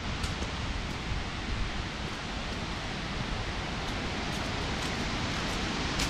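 Steady rushing of Shiraito Falls, growing slightly louder toward the end.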